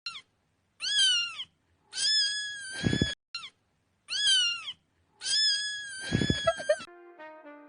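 A cat meowing about five times, the calls rising then falling in pitch, two of them drawn out for over a second. Near the end, a short run of stepped beeping tones.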